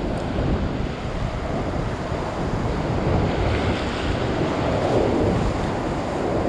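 Ocean swell surging and washing over a rock ledge, a steady rushing wash that swells a little about five seconds in, with wind buffeting the microphone.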